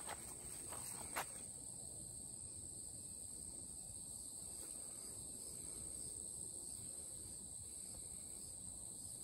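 Steady high-pitched insect chorus, with a couple of sharp footfall-like clicks in the first second or so.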